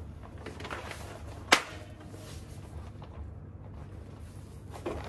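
Mamakiddies folding baby high chair being unfolded by hand: light handling rustle, then one sharp plastic click about a second and a half in as the frame is turned down into its open position, over a low steady hum.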